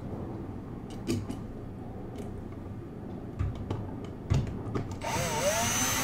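Cordless drill/driver running about five seconds in, driving the outlet's mounting screw into the electrical box; its whine dips, then holds steady. Before that, a few light knocks of handling.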